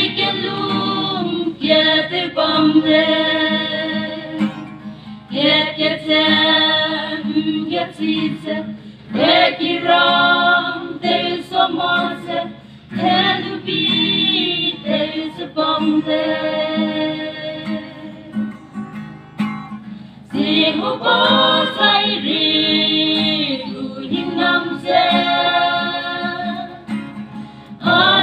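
A group of voices singing a song in harmony, with guitar accompaniment. The phrases are broken by short breaths every few seconds.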